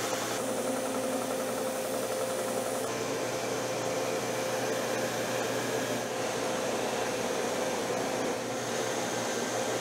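Homemade plywood belt and disc sander running steadily, its electric motor humming while a plywood block is sanded against the disc.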